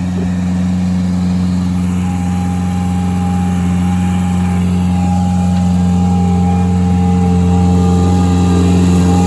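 Skid-steer loader's engine running at a steady speed, a low even hum that grows slightly louder through the stretch.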